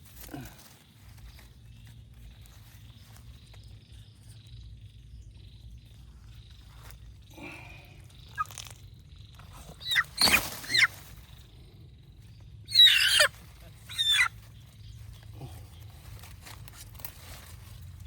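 A chicken squawking in a few loud, harsh bursts: one group about halfway through, then two more shortly after, with quiet between.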